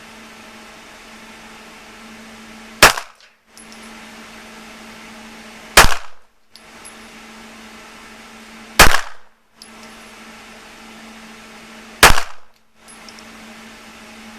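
Four handgun shots fired singly about three seconds apart in slow, aimed fire, each a sharp crack with a short ringing tail.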